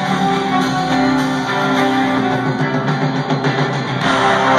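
Live rock band playing the instrumental opening of a song, guitar to the fore, heard distant and echoing from high in an arena's stands.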